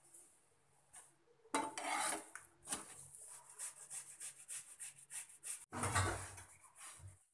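Utensils clattering and scraping on a nonstick tawa as a paratha is handled on it, in a run of quick scrapes and taps. About six seconds in comes a heavier, deeper clatter as the pan is shifted on the burner.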